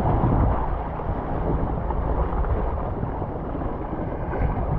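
A sailboat's inboard engine running steadily under way, a low hum mixed with wind noise on the microphone.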